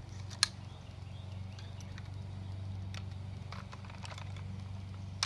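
AR-15 rifle being handled: a sharp metallic click about half a second in as the action is worked to chamber a primed empty case, then a few faint clicks, and a loud sharp knock right at the end. A steady low hum runs underneath.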